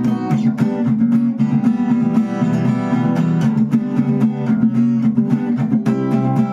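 Acoustic guitar strummed in a steady rhythm, chords ringing between sharp percussive strokes where the strings are struck and damped: the 'knock' (стук) strumming technique.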